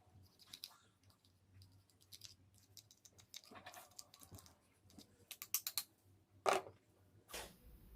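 Light clicks and taps of the blender motor's small parts being handled, with a quick run of clicks about five and a half seconds in and a sharper click soon after.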